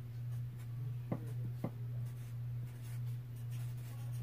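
Sharpie markers stroking on paper as people write, over a steady low hum. Two light taps about a second and a second and a half in.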